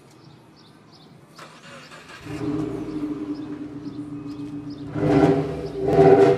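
Subaru Impreza WRX's turbocharged flat-four starts about two seconds in and settles to a steady idle through a Nur Spec aftermarket exhaust. It is then revved twice, briefly, near the end.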